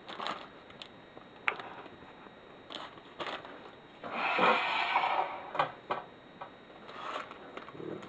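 Plastic instant-ramen wrapper and seasoning packet crinkling as they are handled, with scattered light clicks and taps and a longer crinkling stretch about halfway through.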